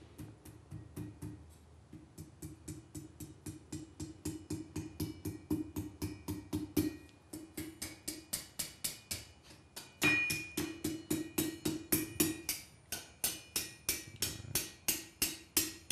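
Hand hammer striking the hot, thin end of a quarter-inch steel bar on the anvil, quick steady blows about three a second with the anvil ringing under them; this is the start of rolling the end into a jelly-roll scroll. The blows grow louder about ten seconds in.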